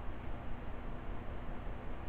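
Steady background hiss with a faint low hum and no distinct sounds: room tone.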